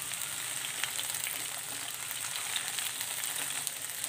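Halved okra and potatoes sizzling in hot oil in a nonstick frying pan as they are stirred with a silicone spatula: a steady hiss with many small crackles.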